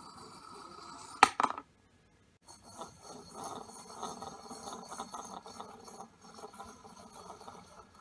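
Plastic clicking and rattling from a Lego model running on a string zip wire: two sharp clicks a little over a second in, then a light, continuous rattle from about two and a half seconds on.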